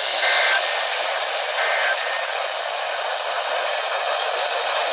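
Radio receiver static: a loud, steady hiss left when the alert broadcast ends. Under it, twice in the first two seconds, come short faint two-pitch data tones, the EAS end-of-message bursts.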